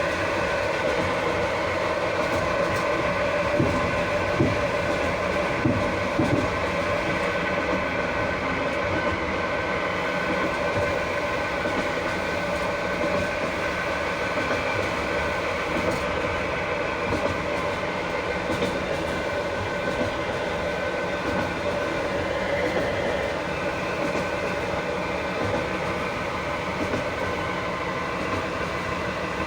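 Railway carriage wheels under continuous brake on a long downgrade, heard from underneath through the open floor chute: brake shoes grinding on the wheel treads in a steady metallic squeal with several held tones, over the rumble of the wheels on the rails. A few sharp knocks from the rail joints come in the first few seconds.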